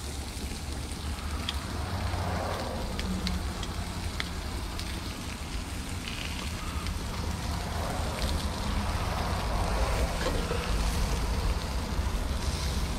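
Sausages, onion slices and meat sizzling on a grill, with scattered small pops over a steady low rumble.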